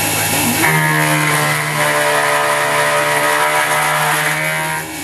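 CNC-converted X2 mini mill running while machining 6061 aluminium. A steady pitched whine comes in under a second in and drops away just before the end.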